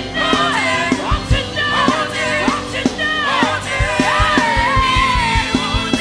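Live gospel worship band playing an up-tempo medley, a lead voice singing over it with sliding, bending notes. A kick drum beats under the music and comes faster about two-thirds of the way through.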